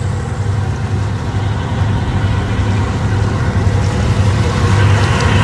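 Boat engine running steadily with a low hum. Near the end a higher whine joins in above it.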